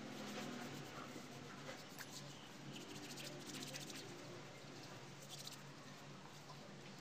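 Faint rubbing of hands working leftover sheet-mask serum into the skin of the arms and hands, with a few short patches of light scratchy friction over a steady low room hum.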